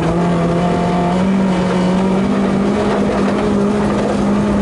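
Lexus Altezza rally car's engine heard from inside the cabin, running hard with its pitch rising slowly and steadily, over a constant rush of tyre and road noise on the snow-packed stage.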